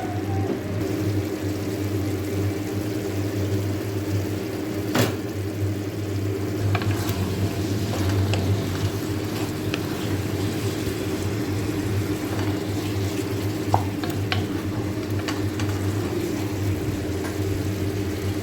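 Pot of humba (braised pork in sauce) simmering and sizzling, over a steady low hum, with a few light clicks.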